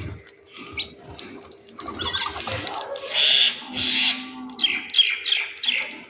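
House sparrows chirping and chattering while feeding, with a quick run of short chirps near the end.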